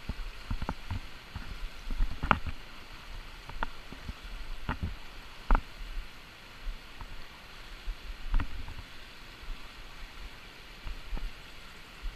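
Steady rush of a shallow, fast river over rocks. Scattered sharp clicks and knocks, about a dozen at irregular times, come from handling the spinning rod and reel close to the body-mounted microphone.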